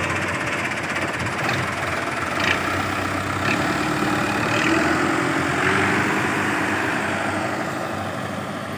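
New Holland Dabung 85 tractor's diesel engine running steadily with a loud clatter.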